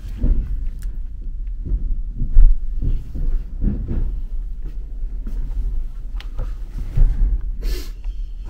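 Irregular dull low thumps over a rumble, with a few light clicks and a short rustle near the end.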